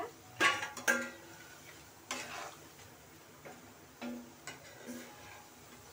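Wooden spatula knocking against a steel kadhai and steel plate as fried pakoras are lifted out of the oil, each knock with a short metallic ring. There are two loud knocks in the first second, then several softer ones, over a low sizzle of frying oil.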